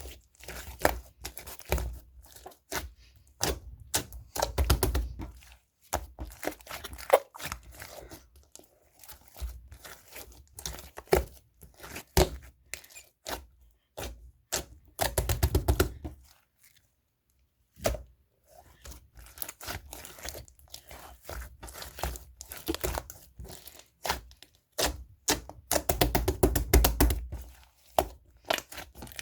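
Green marbled macaron slime being squished and stretched by hand, giving rapid sticky pops and crackles. Three louder, denser stretches come when it is pressed hardest, and there is a short pause about halfway through.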